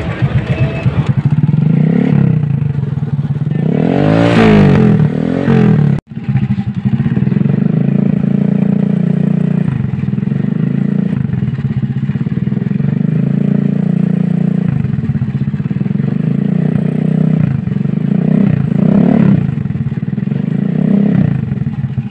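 United 100 motorcycle's 100cc four-stroke single-cylinder engine running through a newly fitted SC Project-style aftermarket silencer. It is revved up and back down about four seconds in, then runs at a steady idle with another short blip of throttle near the end.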